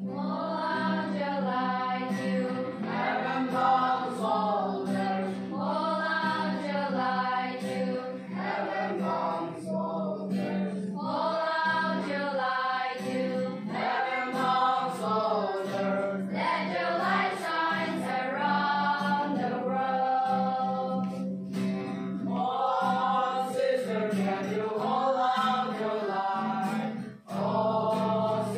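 A group of voices singing a slow, gently wavering song over a steady held low note, with a brief break in the singing near the end.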